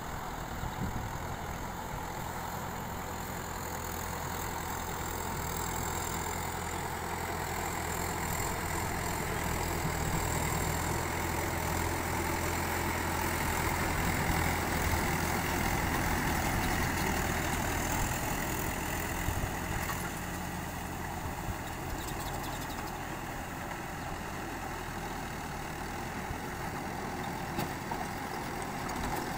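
Mahindra 595 Turbo tractor's diesel engine running steadily as it drags a leveler through a flooded paddy field, growing louder as it comes closer about halfway through and fading again as it moves off.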